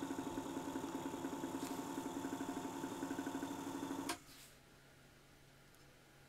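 Small electric drive motor of a belt-driven watchmaker's lathe running with a steady hum and a fast, even pulse, then switched off about four seconds in: the hum cuts off abruptly.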